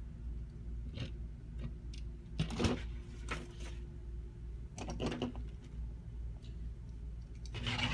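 Plastic action figures being handled and moved on a tabletop: a few scattered knocks and rubbing sounds, the loudest about two and a half seconds in, over a steady low hum.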